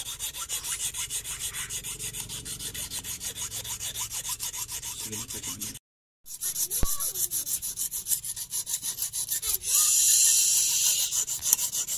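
Hand file rasping back and forth over a hammer-flattened steel welding-rod lure blank, about four quick strokes a second, smoothing off the hammer marks. The sound cuts out briefly about halfway, with a single sharp tap just after.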